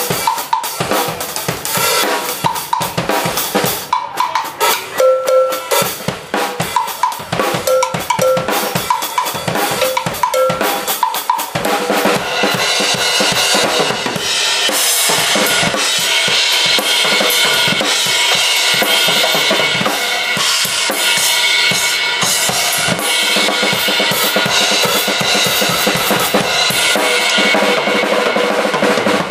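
Drum kit solo played live. For the first twelve seconds or so, separate hits on drums and cymbals; then it builds into a dense, continuous run of fast strokes under washing cymbals.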